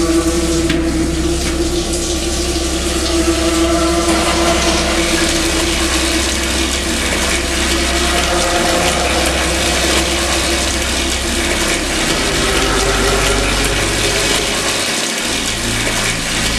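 Water running hard from a bathroom tap as a steady rushing hiss, with a low hum underneath.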